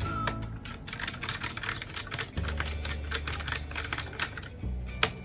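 Rapid, irregular small clicks of a screwdriver driving the little retaining screw back in over an M.2 NVMe SSD, several clicks a second, stopping near the end.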